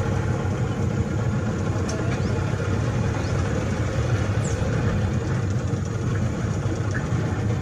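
Boat motor running steadily at a low idle, a continuous low-pitched hum.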